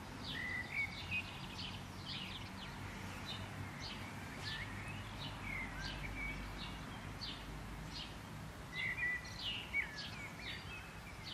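Small birds chirping and calling over a steady hiss of light rain, with a louder flurry of chirps about a second in and again near the end.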